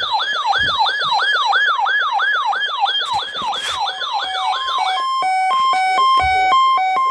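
Electronic alert siren sweeping rapidly up and down, about three sweeps a second, then switching about five seconds in to steady beeps alternating between a higher and a lower pitch.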